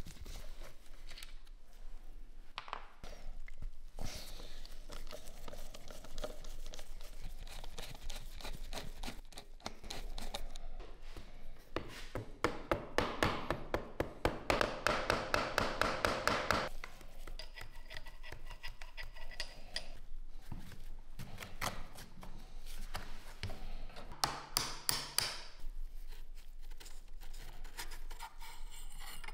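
Hand tools working on the steel parts of a K98 Mauser rifle during disassembly: scattered clicks and scrapes of metal on metal, with a quick run of hammer taps on a punch against the barrel band in the middle, about four a second.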